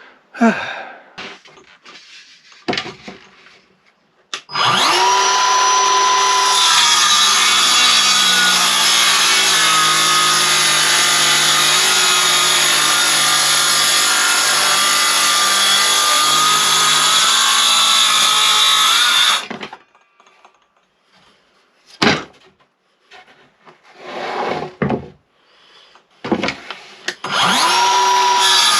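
Circular saw spinning up with a rising whine about four seconds in, then cutting wood along a Kreg rip-cut guide for about fifteen seconds before it stops. A few knocks of handling follow, and the saw starts up again near the end.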